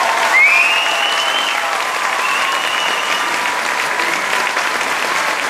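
Audience applauding steadily, with a couple of high, gliding cries rising out of the crowd in the first few seconds.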